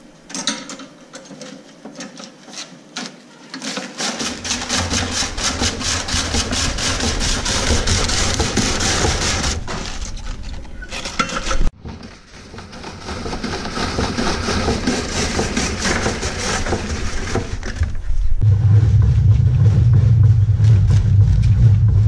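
Electric vegetable shredder grinding cabbage heads into shreds for sauerkraut: a dense, rapid clatter that starts about four seconds in, after a few scattered knocks. A loud low hum joins near the end.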